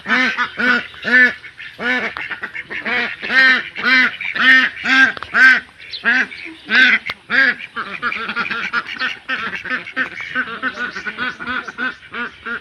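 A flock of domestic ducks quacking. The loud quacks come about two a second at first, then turn into quicker, softer quacking in the second half.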